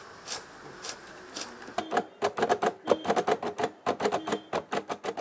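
Manual Braille writer (brailler) being typed on: its metal keys and embossing mechanism give sharp, irregular clacks, a few spaced strokes at first, then a rapid run of keystrokes from about two seconds in.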